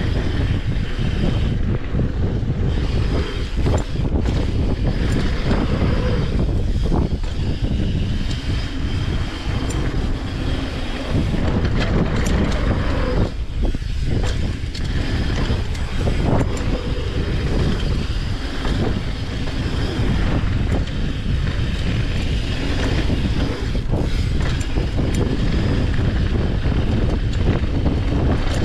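Mountain bike descending a dirt trail: steady rumble of wind on the microphone and knobby tyres rolling over dirt and gravel, with frequent short rattles and clicks from the bike over bumps.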